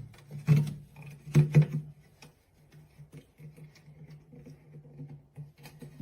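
A few sharp knocks, the loudest about half a second and a second and a half in, then light scattered tapping, over a steady low hum.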